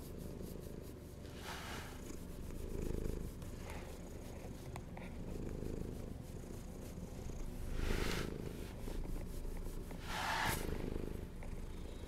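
A cat purring steadily as it is stroked, with a few brief, louder rustles of fur.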